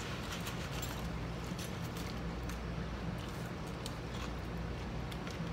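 Eating sounds: chewing battered fish, with small scattered clicks and taps from a fork and plastic sauce cups, over a steady low hum.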